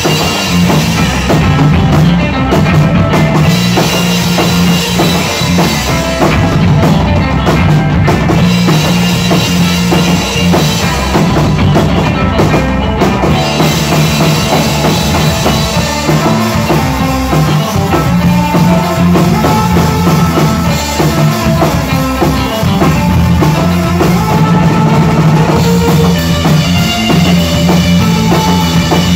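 Rock band playing live and loud: electric guitar, bass guitar and a drum kit with bass drum and snare.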